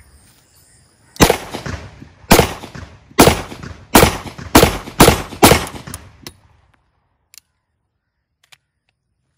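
A locally made .30 bore (7.62×25 mm) semi-automatic pistol fires seven shots over about four seconds, the shots coming faster toward the end, each with a short echo. The magazine cycles through without a stoppage.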